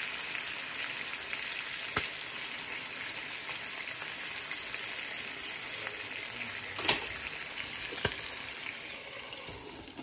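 Salmon fillets frying in butter in a nonstick pan: a steady sizzle, broken by a few sharp clicks, the loudest two in the second half. The sizzle eases slightly near the end.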